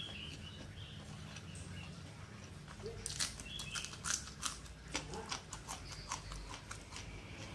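Close-miked mouth sounds of someone eating rice and sambal by hand. A run of wet chewing clicks and lip smacks starts about three seconds in, over a low steady hum.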